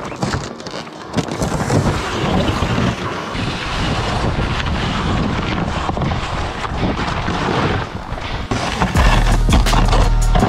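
Towed plastic sled scraping and hissing over snow and ice, with wind buffeting the microphone. A heavier low rumble comes in about nine seconds in.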